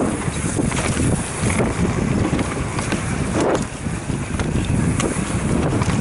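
Wind buffeting the microphone of a bike-mounted camera on a mountain bike descending a dirt trail, over the rumble of the tyres on dirt, with a few sharp clatters as the bike hits bumps.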